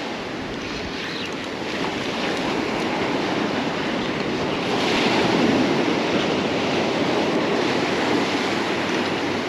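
Surf breaking and washing up a sandy beach, with wind buffeting the microphone; the wash swells louder about halfway through.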